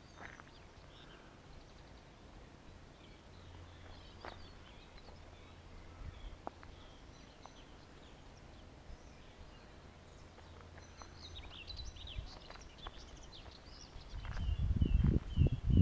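Faint, scattered bird chirps and calls over a quiet outdoor background. Near the end, close footsteps start up and become the loudest sound.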